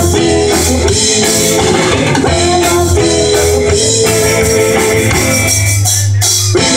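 Live amplified rock band playing: electric guitars over a drum kit, with a brief break in the playing just before the end before it comes back in.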